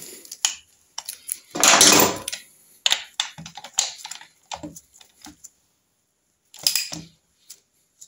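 Metal hand tools clicking and clattering against the alloy gearbox casing of a Triumph Trident T160 engine, in short irregular clicks with one longer, louder clatter about two seconds in.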